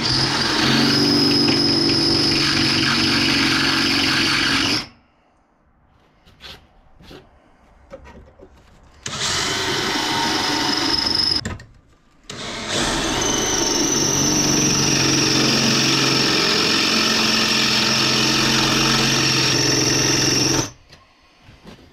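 Cordless drill boring into a hardened steel saw blade, run in three long pulls with short pauses between: a steady motor drone under a high whine from the bit cutting the hard steel. The drill is working hard against very hard steel.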